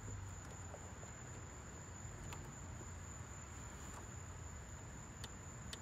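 Quiet background hum with a thin, steady high-pitched whine and a few faint ticks.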